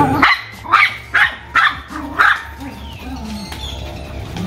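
Rottweiler puppies barking in short, sharp yaps, about five in the first two and a half seconds, then quieter. Excited play barking while chasing a flirt-pole lure.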